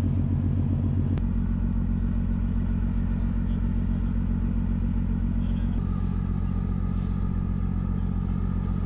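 Steady low machinery drone with a fast, even throb, like large engines or generators running. A click about a second in, after which the drone's pattern shifts slightly, and a faint thin whine joins in over the second half.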